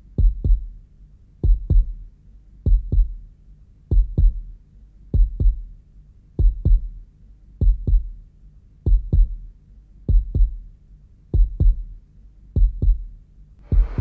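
Heartbeat sound effect: a slow, steady double thump (lub-dub), about one beat every second and a quarter, eleven beats in all. A rushing noise swells in at the very end.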